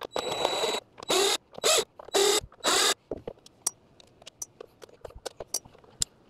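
A cordless screwdriver backs screws out of a robot vacuum's plastic underside in five short whirring runs, the first one longer. After about three seconds there are only scattered light clicks and taps as hands work the plastic housing.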